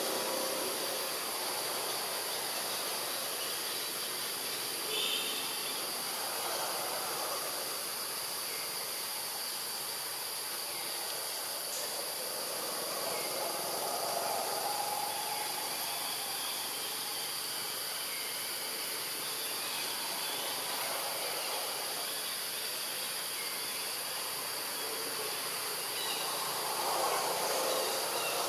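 Steady high-pitched drone of insects in a forest, over a hiss, with a few soft swells of lower rushing noise and a brief faint chirp about five seconds in.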